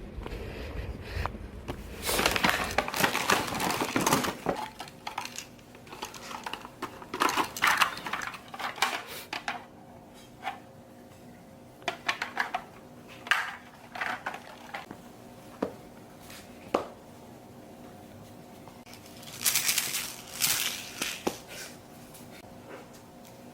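Objects being handled: irregular clatter, clicks and rustling, busiest about two to four seconds in and again near the end, over a faint steady hum.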